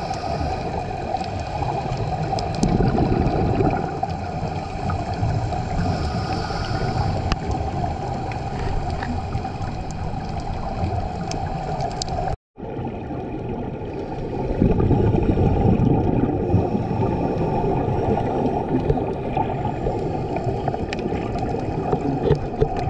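Underwater sound through a GoPro housing on a scuba dive: a steady muffled water rush, swelling twice into a low gurgling rumble typical of a diver's exhaled regulator bubbles. The sound cuts out for a moment about halfway through.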